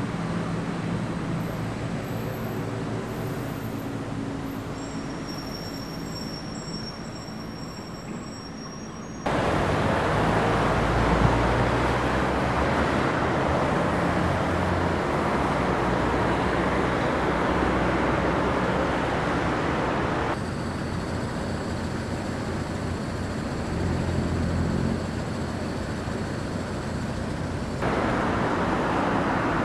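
Outdoor town ambience: a steady wash of road traffic. It changes abruptly a few times, getting louder about a third of the way in.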